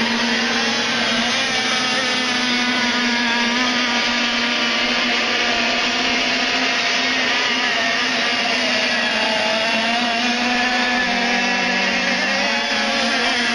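Several radio-controlled racing boats running at speed, their small engines making a steady buzz whose pitch wavers up and down as they work around the course.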